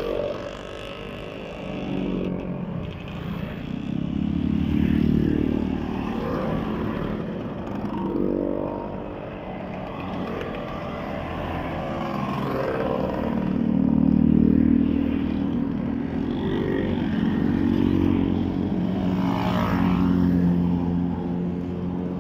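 A column of motor scooters riding past one after another, their small engines swelling and fading several times as each nearby scooter goes by.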